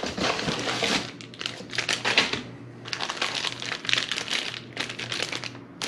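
Packaging crinkling and rustling in bursts as a box is unpacked by hand, with a short pause a little past the middle.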